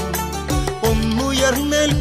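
A Malayalam folk song (nadan pattu) playing: a wavering melody line over a steady drum beat of about two strokes a second.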